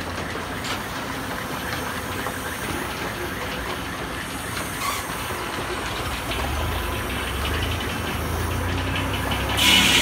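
Antique engine running steadily as it belt-drives a sawmill, its low hum growing louder about six seconds in. Just before the end a loud, high-pitched whine starts suddenly: the sawmill blade cutting into a log.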